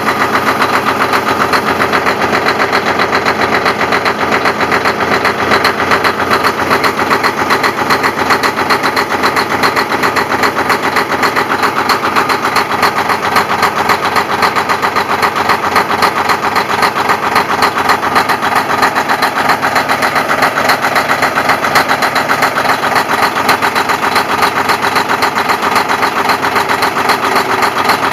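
Detroit Diesel Series 60 inline-six in a semi truck idling steadily just after a cold start, a fast, even diesel pulse from the exhaust stack.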